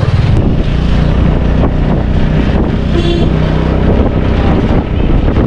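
Motorcycle engine running steadily while riding through traffic, heard from the pillion seat, with wind rushing over the microphone.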